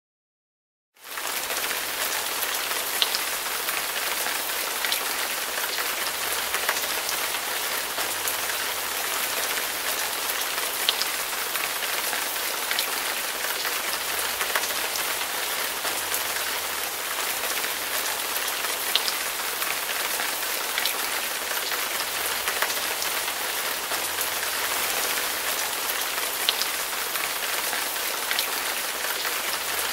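Steady hiss of heavy rain, with a sharp drop-like tick about every two seconds. It starts about a second in, after a brief silence.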